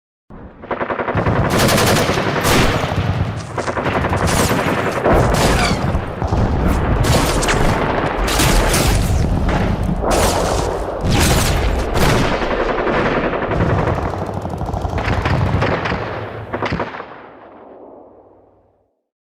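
Battle sound effect: sustained rapid automatic gunfire with overlapping bursts and occasional louder single shots. It fades out near the end.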